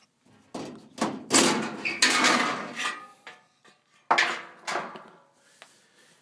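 Sheet-metal access panel of an old Lennox furnace being pulled off and handled, with clanks and scraping of metal. A long rattling stretch comes in the first three seconds, then another sharp clank about four seconds in.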